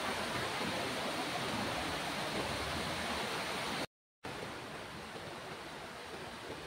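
Shallow creek water rushing over rocks, a steady rush. About four seconds in it cuts off abruptly for a split second, then a quieter steady hiss follows.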